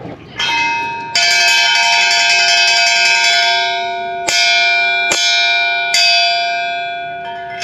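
A railway station intimation bell is struck repeatedly, with each stroke left ringing and fading slowly. Two strikes come near the start and three more about a second apart in the middle. The bell signals that an up-side train is approaching the station.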